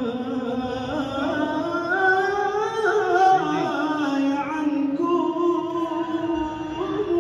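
A man singing a mawwal (free-rhythm vocal improvisation) solo into a microphone: long held notes with melismatic turns, climbing higher about two seconds in and then settling back to a lower held note.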